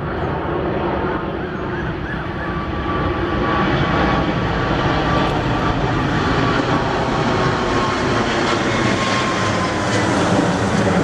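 Jet engines of an Emirates Boeing 777-300 airliner on final approach, gear down: a steady broad jet noise with a thin whine that slowly falls in pitch as the aircraft passes, growing a little louder about three seconds in.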